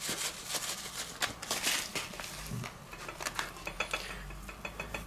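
Barbecue rub shaken from a foil pouch over tofu slices on a wooden cutting board: faint crinkling of the pouch and light pattering and ticking as the granules fall and hands work the seasoning in.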